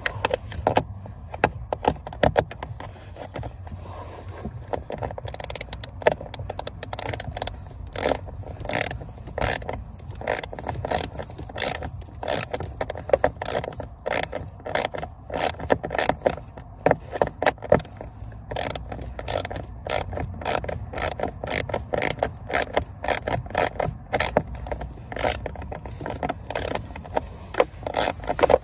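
Ratchet wrench with an 8 mm socket clicking as it drives a self-tapping screw holding the blower motor into its plastic housing. Scattered clicks at first, then a steady run of quick ratchet clicks from about five seconds in.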